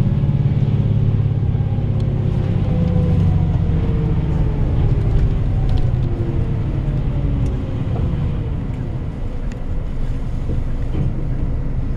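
Bus engine and road noise heard from inside the cabin, with the engine note slowly falling in pitch through the middle as the bus eases off.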